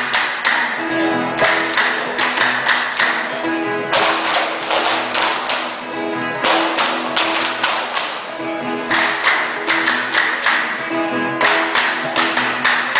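Violas caipiras playing an instrumental passage: sustained string notes under a rhythmic, percussive strumming that comes in repeated groups of sharp strokes.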